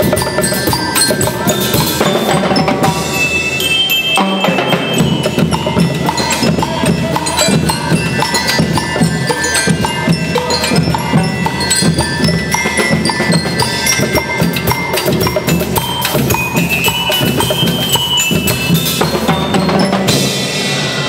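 School band playing: a bell-lyre (glockenspiel) melody over snare drums and a drum kit keeping a steady beat. Near the end the music breaks off and cheering begins.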